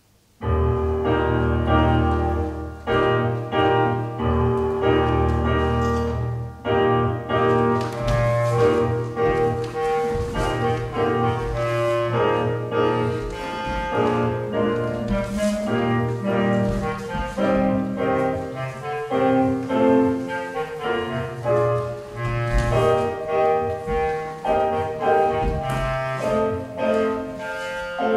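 Instrumental recorded music with a sustained low bass line under shifting melody notes, starting suddenly about half a second in.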